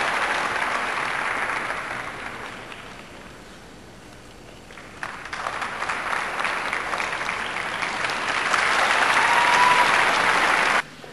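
Arena crowd applauding. The applause dies down, builds again from about five seconds in, and cuts off abruptly near the end.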